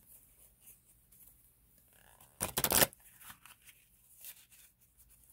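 Tarot cards being shuffled in one short burst of rapid flicks about halfway through, with faint rustles of card handling around it.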